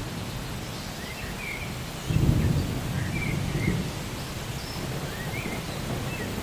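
Steady rain with a low roll of thunder that swells about two seconds in and fades out. Short bird chirps come and go throughout.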